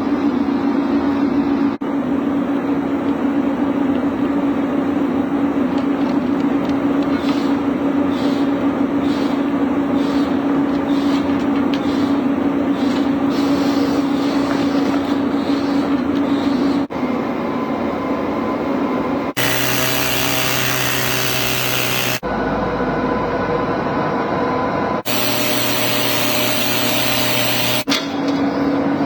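Excavator diesel engine running with a steady hum, joined together from several edited clips. Later on there are two stretches of about three seconds each filled with loud rushing noise.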